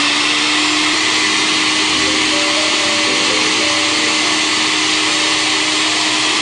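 Countertop blender motor running steadily with an even hum, mixing a vinaigrette of juice and olive oil until it emulsifies.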